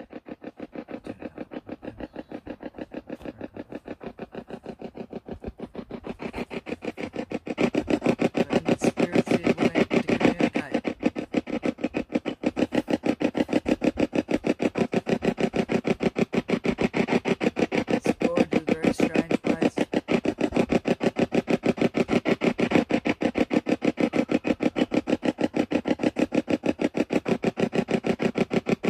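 Spirit box sweeping through radio frequencies: a fast, even chopping of radio static several times a second. It grows louder over the first eight seconds.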